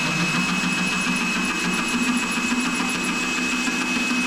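Power drill running steadily with a hole saw slowly grinding into porcelain tile, a constant high motor whine over a low hum and grinding noise.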